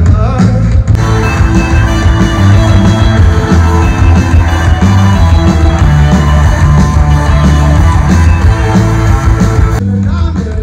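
A live band plays loud rock over a big outdoor PA, with electric guitars, drums and a heavy bass line. The sound fills out in the high end about a second in and thins out again near the end.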